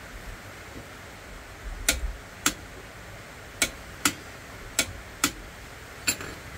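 Sharp metallic clicks from tools working on an oil pump drive shaft held in a vise: seven clicks in all, mostly in pairs about half a second apart, starting about two seconds in.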